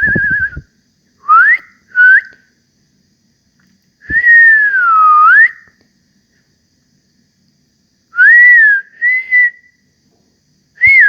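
A person whistling through the lips in short separate phrases: a warbling note at the start, two quick upward-sliding whistles, a longer whistle that dips and rises again, two more short whistles, and one more near the end.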